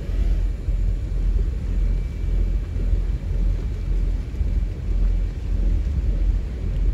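Motorboat underway: a loud, uneven low rumble of engine and hull, buffeting against the microphone throughout.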